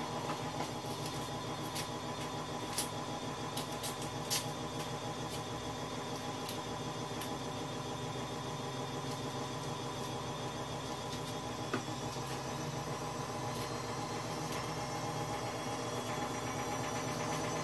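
A steady mechanical motor hum with several fixed tones throughout, broken by scattered light clicks and knocks of a knife and dishes being handled at a kitchen sink.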